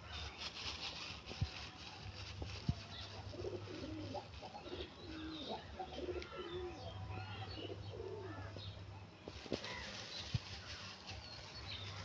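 Feral rock pigeons cooing: a run of low, rolling coos through the middle, with faint higher chirps over a steady low hum.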